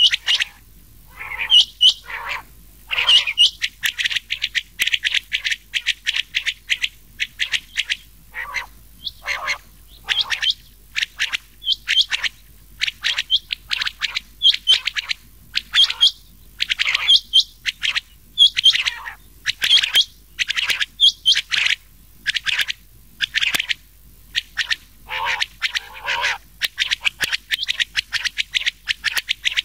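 Quail calls, a mix of rain quail and other quail voices, repeating as short sharp notes about twice a second, used as a lure call for quail hunting.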